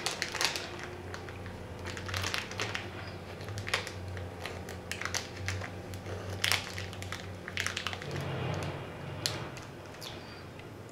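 Close-miked chewing of a chewy, chili-seasoned cherry candy: irregular mouth clicks and smacks.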